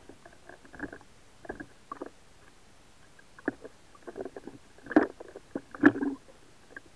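Sea water lapping and sloshing at the surface, heard muffled through a waterproof camera housing, with scattered knocks and two louder ones about five and six seconds in.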